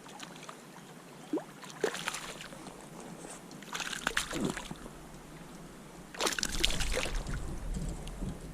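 Hooked smallmouth bass splashing at the water's surface beside a kayak as it is reeled in, in three bouts of splashing about two, four and six and a half seconds in, the last the loudest.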